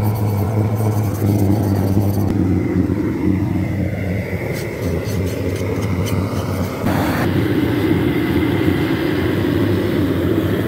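Gas blowtorches burning steadily, their flames singeing the bristles off a slaughtered hog's carcass, with a brief surge about seven seconds in.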